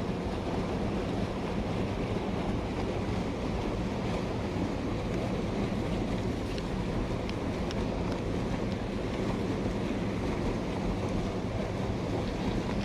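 Mountain stream water rushing steadily, a dense even noise.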